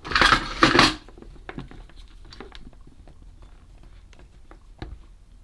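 Hands handling small electronic parts and a soldering iron on a silicone work mat: a loud rustling burst in the first second, then a few faint scattered clicks and taps.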